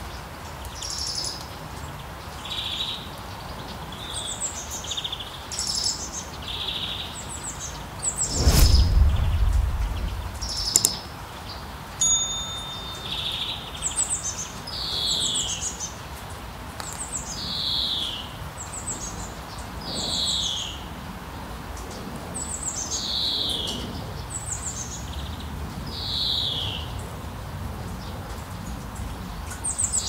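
Songbirds chirping and calling, with short high notes in the first half and then a short downward-sliding call repeated every couple of seconds. A single low thump with a brief rumble about eight and a half seconds in is the loudest moment.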